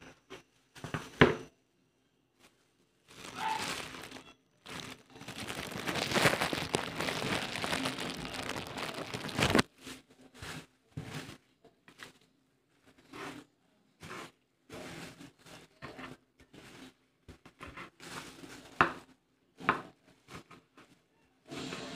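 Crinkling and rustling of dry material handled by hand, with short light knocks in between. About a second in there is a sharp knock. A long stretch of steady rustling runs through the middle, then gives way to scattered short crinkles and clicks.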